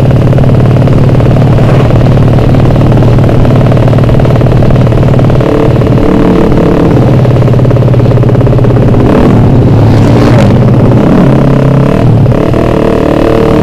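Suzuki Satria F150's ported single-cylinder four-stroke engine running on the move through a loud roadrace exhaust. The engine note holds steady, dipping in pitch about halfway and again near the end as the throttle or gear changes.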